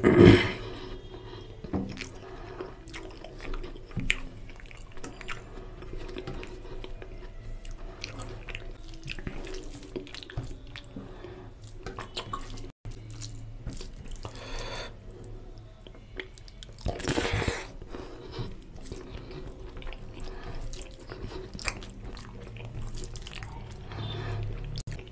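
A bare hand squishing and mixing rice with oily mutton curry on a steel plate: a stream of small wet squelches and clicks, with a louder wet burst just after the start and another about two-thirds of the way through.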